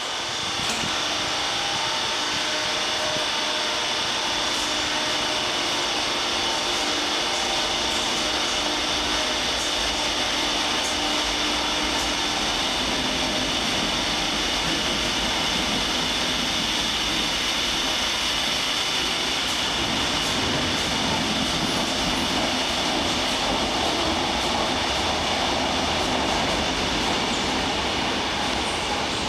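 Electric commuter train running along the platform of an underground station: a steady rumble and hiss with a high whine, echoing off the tunnel walls. A lower hum fades out about halfway through.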